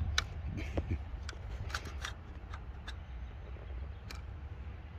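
Light metallic clicks and rattles of a Ruger SFAR .308 rifle being handled and tilted after a shot, with the bolt not having picked up the next round: a failure to feed on gas setting two. A dozen or so short clicks fall in the first three seconds and one more about four seconds in, over a steady low wind rumble.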